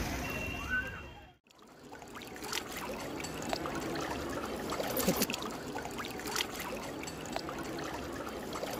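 Ganges river water splashing and trickling, with many small splashes. There is a brief drop to near silence about a second and a half in.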